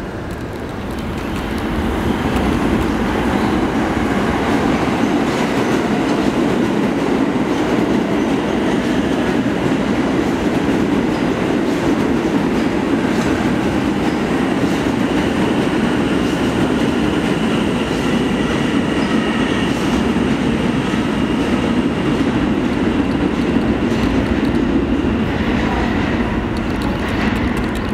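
New York City subway train running through the station on steel rails, a loud steady rumble and clatter of wheels with a faint high whine. It builds over the first couple of seconds and drops off near the end as the train clears.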